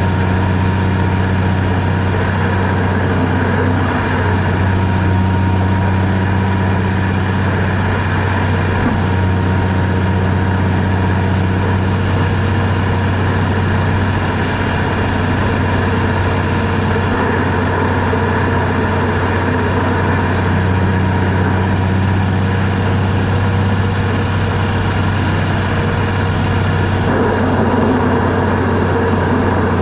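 Vehicle engine running steadily with road noise while driving, a constant low hum.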